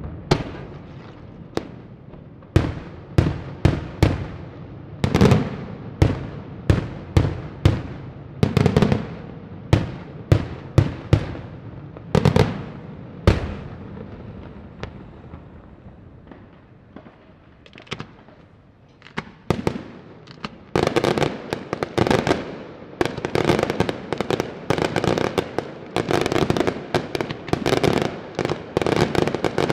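Daytime fireworks: a series of sharp aerial shell bursts, about one or two a second, for roughly the first 14 seconds. After a short lull, from about 20 seconds in, a dense rapid run of many small reports follows without a break.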